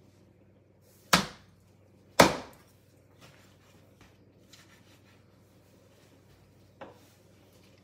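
A heavy cleaver-style knife chopping through raw turkey onto a plastic cutting board: two loud chops about a second apart, then a few faint taps and one lighter knock near the end.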